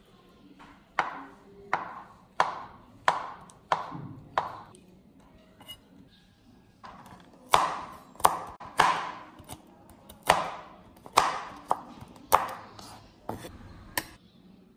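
Kitchen knife chopping on a wooden cutting board, cutting banana and almonds: a run of about six strokes, a short pause, then a longer run of about a dozen more.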